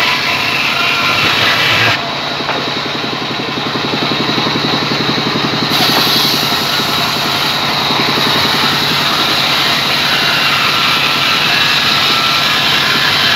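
Sawmill band saw running and ripping through a squared rain tree log, a loud, continuous mechanical cutting noise. The tone changes abruptly about two seconds in and again near six seconds.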